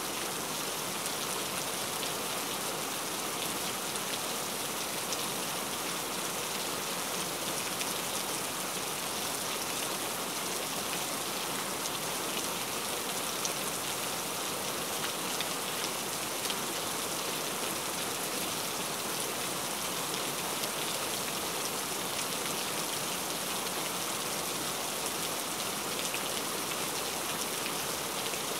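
Steady heavy rain: an even hiss of downpour with a fine patter of individual drops, unchanging throughout.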